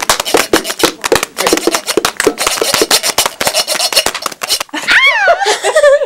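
A din of hand-made percussive noise, rapid taps and clicks several a second from a hand drum, gloved hands and a pencil on a tin can, imitating a chorus of calling insects. About five seconds in, it gives way to laughing voices sliding up and down in pitch.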